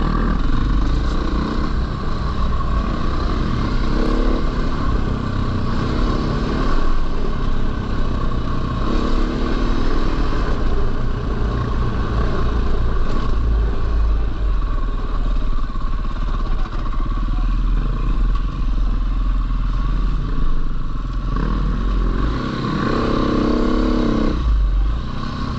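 Husqvarna FE450 single-cylinder four-stroke dirt bike engine running under way, revving up and easing off several times as the throttle and gears change, with wind buffeting the microphone.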